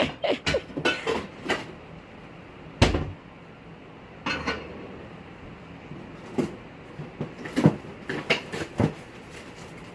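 Kitchen handling clatter: a series of sharp clicks and knocks like cupboard doors and utensils, with one heavy thump about three seconds in and a brief rustle a second or so later.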